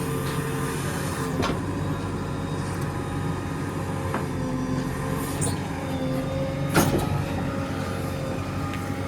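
JCB 3DX backhoe loader's diesel engine running steadily, with a fainter whine that rises and falls. A few sharp knocks cut through, the loudest about seven seconds in.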